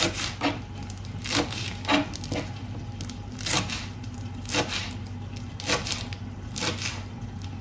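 Sharp knocks of kitchen utensils during food preparation, about ten of them at uneven intervals half a second to a second apart, over a low steady hum.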